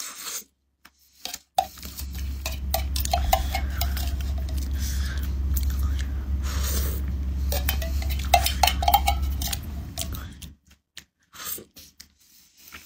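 A spoon scraping and clinking against the inside of a metal food can as food is scooped out and eaten. Under it, a steady low rumble starts about a second and a half in and stops a couple of seconds before the end.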